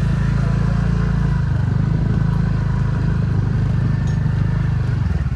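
Motor scooter engine running at a steady speed while being ridden, a constant low drone.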